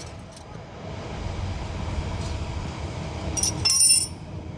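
Several bright metallic clinks, a little after three seconds in, of small steel parts being handled while the rear brake caliper bolts are taken out, over a steady low background rumble.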